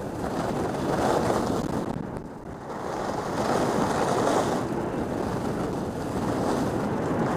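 Skis sliding and carving over groomed, packed snow, a steady rushing hiss that rises and falls with the turns, mixed with wind buffeting the microphone; it dips briefly about two seconds in.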